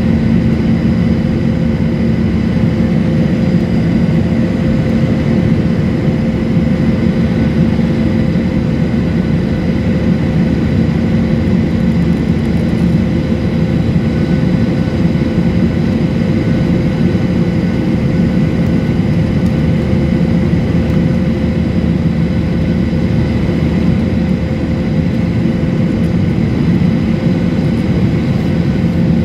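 Steady jet-airliner cabin noise during the climb after takeoff: engine and airflow drone heard from a window seat, with a few constant hums over it.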